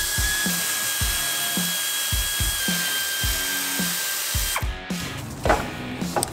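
Handheld power tool whining steadily as it spins out the bolts on a Jeep Wrangler's rear driveshaft flange; the motor stops a little over four seconds in, and two sharp metal clicks follow near the end. Background music with a steady beat plays underneath.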